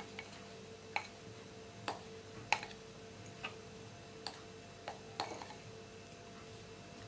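A spatula clinking lightly against a glass bowl while chopped strawberries are scraped out of it: about eight small, irregular taps, each with a brief glassy ring.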